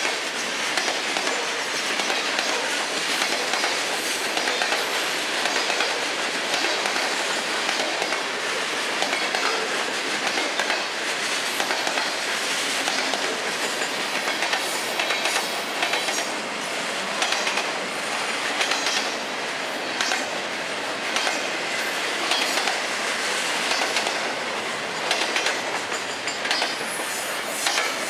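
Freight cars of a Florida East Coast Railway train rolling past: covered hoppers, boxcars and double-stack container well cars. A steady rumble of steel wheels on the rails with clicking as they pass over the rail joints.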